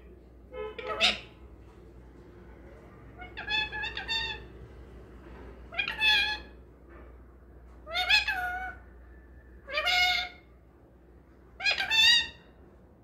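Rose-ringed parakeet calling: six short, pitched calls that bend in pitch, spaced about two seconds apart.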